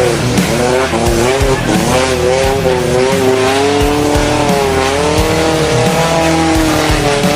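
Off-road vehicle engine revving, its pitch rising and falling repeatedly as the throttle changes.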